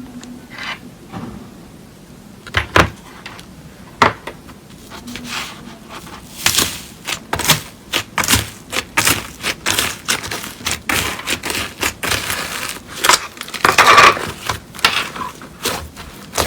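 Slime being squeezed and poked by hand, giving irregular sharp pops and crackles that come sparsely at first and grow thick from about six seconds in.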